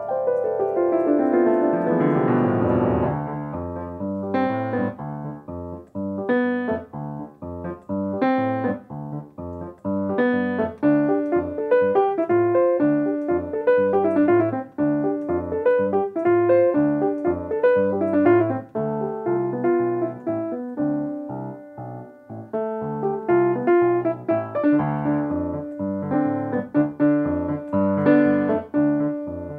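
Solo piano music: a sweeping downward run in the first few seconds, then a flowing stream of single struck notes.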